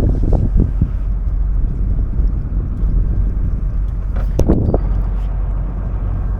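Steady low rumble of a fishing boat's machinery with wind buffeting the microphone, and a few short knocks, a louder cluster of them about four seconds in.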